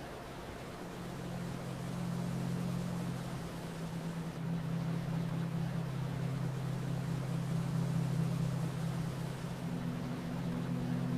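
Steady rush of falling water with a low, soft ambient drone held underneath, its sustained notes shifting a few times.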